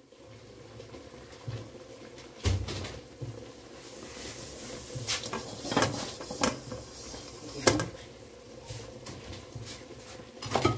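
A cloth wiping the inside of an empty metal kadhai on the stove, with scattered light knocks and scrapes of the pan.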